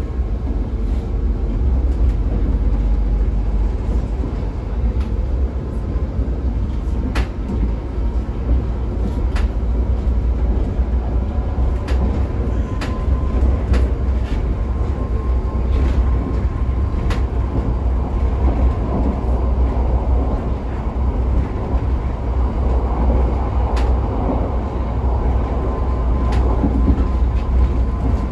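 Pesa EN97 electric multiple unit running at speed, heard from inside the passenger car: a steady low rumble with occasional sharp clicks every one to three seconds, and a steady high whine in the second half.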